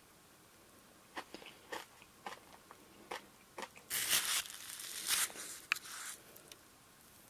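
Crunchy blue soda-flavoured crushed ice in a Glico Smile Plus Soda Float cup being worked with a metal spoon. A few light clicks and scrapes come first, then dense crunching about four seconds in that lasts about two seconds.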